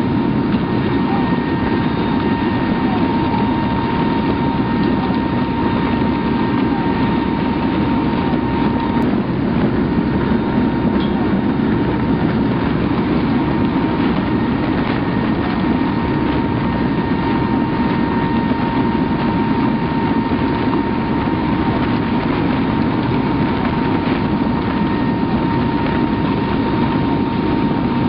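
Steady drone of a transport aircraft in flight, heard at its open rear ramp: engine noise and rushing wind, with a thin steady high tone running through it.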